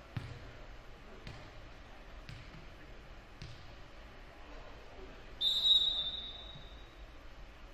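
A volleyball bounced on the hardwood gym floor about once a second, the server readying a serve, then one loud blast of a referee's whistle about five and a half seconds in, fading out over a second or so, signalling the serve.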